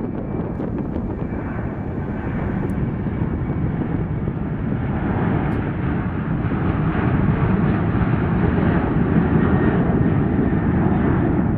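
Jet engines of a Boeing 737 at takeoff power during the takeoff roll, a steady rushing roar that grows louder as the airliner accelerates down the runway.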